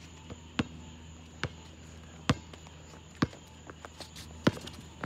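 A basketball being dribbled on an asphalt outdoor court: five sharp bounces, about one a second, with a few lighter clicks between them.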